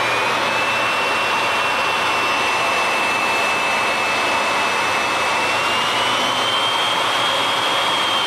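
Porter-Cable variable-speed router motor running free, a steady whine with a rushing air noise. Its pitch steps up as the speed is raised, once near the start and again about six seconds in. The motor runs smoothly, with bearings that sound perfect.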